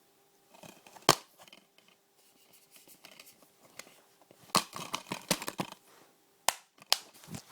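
Plastic film cases being handled: sharp clicks and knocks, one about a second in and a busy run of them around the middle, with light rustling between.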